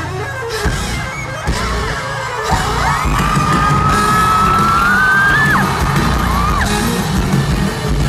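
A rock band playing live through a festival PA, with drums and bass. From about two and a half seconds in, a long high held cry sits over the music, rising a little before it breaks off.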